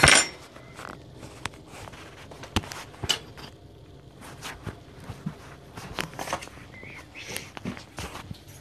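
Handling noise from a hand-held phone being moved about: a loud knock at the very start, then scattered clicks, taps and rustling.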